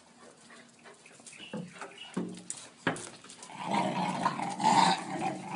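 Dogs playing rough: a few short sounds and a sharp click, then, about three and a half seconds in, a louder stretch of rough growling as two dogs wrestle.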